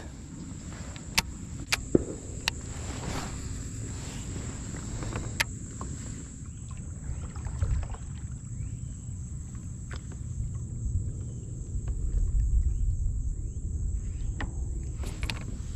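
Fishing kayak on the water: a low rumble with a few sharp clicks and knocks scattered through, under a steady high-pitched insect drone.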